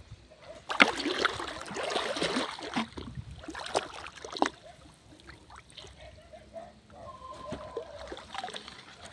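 Shallow pond water splashing and sloshing as a hand reaches into it and feet wade through, loudest from about a second in for two seconds, with a couple of sharper splashes, then quieter trickling and sloshing.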